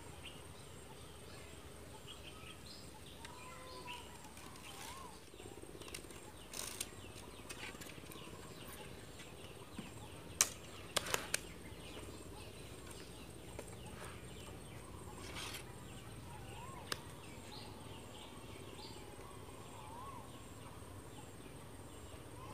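Quiet outdoor ambience with short bird calls now and then, and the clicks and rustles of hands working with string, cloth and wood; a cluster of sharp clicks about halfway through is the loudest part.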